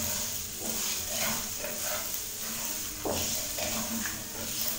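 Pork pieces frying in oil in a wok, a steady sizzle, while a wooden spoon stirs through them. The water has boiled off and the meat is now frying in a little oil and its own fat.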